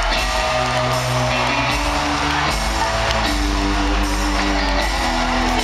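Live concert music played loud over an arena sound system: held synth notes that step from pitch to pitch over a steady, heavy bass.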